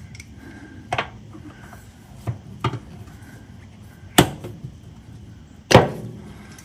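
Steel exhaust hanger removal tool clicking and knocking against the exhaust hanger rod while prying off an old rubber exhaust hanger: five sharp knocks, the loudest about four and six seconds in, the last as the hanger comes free.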